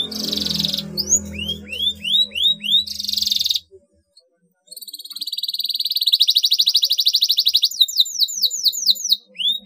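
Domestic canary singing: a series of quick rising whistled notes and short buzzy passages, then a brief pause. After the pause comes a long rapid trill of about three seconds, followed by a run of repeated falling notes and more rising notes near the end.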